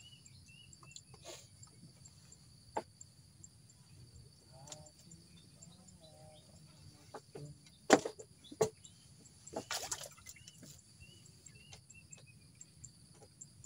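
Steady high insect chorus with faint chirps over it, broken by a few sharp knocks and clatters of fishing gear being handled on a wooden platform, loudest about eight and ten seconds in.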